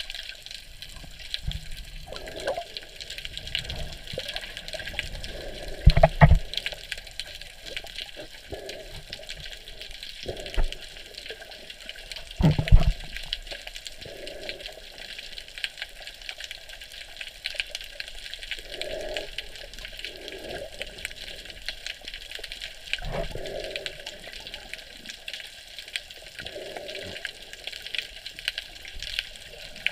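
Underwater sound picked up by a GoPro in its waterproof housing: a steady crackling hiss of the sea, with two loud low thumps in the first half.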